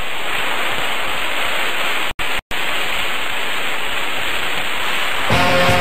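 Television static, a steady hiss that cuts out twice for an instant about two seconds in. Near the end, rock music with guitar starts.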